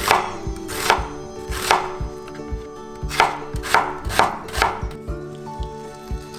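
Kitchen knife slicing an onion on a wooden cutting board: seven crisp strokes of the blade through the onion onto the board, with a short pause about two seconds in. The slicing stops about five seconds in.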